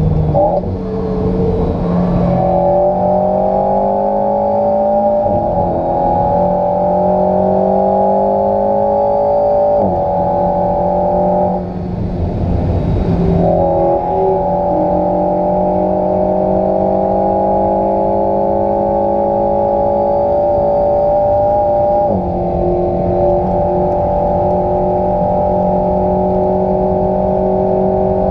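Alpine A110's turbocharged 1.8-litre four-cylinder engine heard from inside the cabin under hard acceleration. Its note climbs steadily and drops at each upshift, with a brief break about twelve seconds in.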